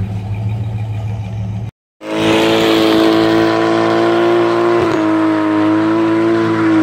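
A big car's engine running low and steady, then, after a sudden cut, a car doing a burnout: its engine held at high revs, nearly level for about five seconds, over the hiss of spinning tyres.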